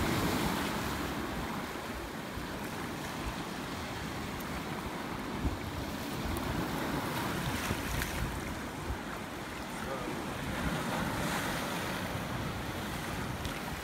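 Small sea waves washing on the shore, with wind buffeting the microphone: a steady, even noise without a break.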